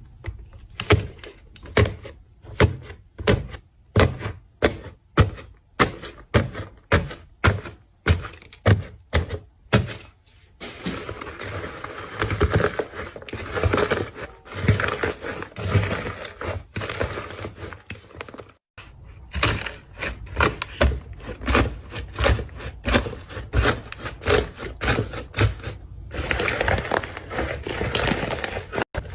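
Slime being pressed and squished by hand: sticky pops and clicks about two a second, then a stretch of denser crackling, with a sudden change a little past halfway.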